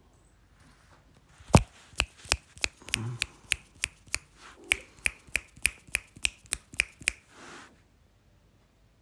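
Fingers snapping in a quick, even run of about seventeen sharp snaps, about three a second, starting about a second and a half in and stopping about seven seconds in.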